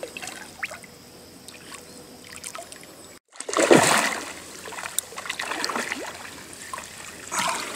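A hooked fish thrashing and splashing at the water's surface as it is played and brought to the landing net. The splashes are small at first; the loudest splashing comes just after a momentary dropout about three seconds in, then smaller splashes follow.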